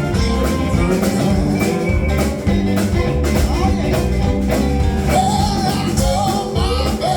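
Live blues band playing, with electric guitar, bass and drums keeping a steady beat and a wavering melodic line near the end.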